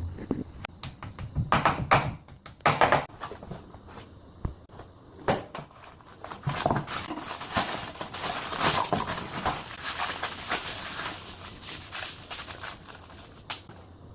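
Plumbing fittings being handled and worked: a run of sharp clicks and knocks, then a longer rough scraping noise from about six seconds in.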